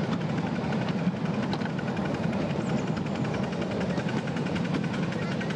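Passenger carriages of a 7¼ inch gauge miniature steam railway rolling along the track: a steady rumble with a continuous fine rattle of wheels on rail.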